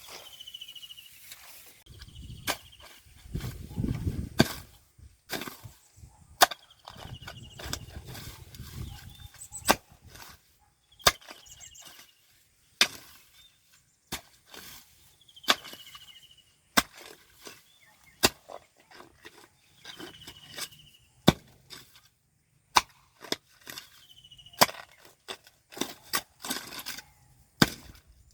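Sharp, irregular strikes of a hand tool, roughly one a second, as in chopping or hacking work. A short falling chirp repeats about every four seconds behind them.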